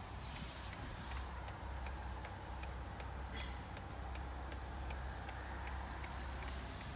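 Hazard-light flasher ticking at an even pace inside a Ford F-150's cab, over the low steady hum of the engine at idle.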